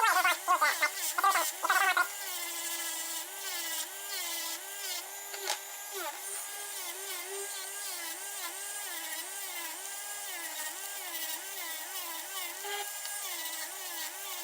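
Dremel rotary tool running a cloth polishing wheel with red compound against a silver pocket-watch case: a steady motor whine whose pitch dips and recovers over and over as the wheel is pressed on and eased off. The first two seconds carry louder bursts of rubbing over the whine.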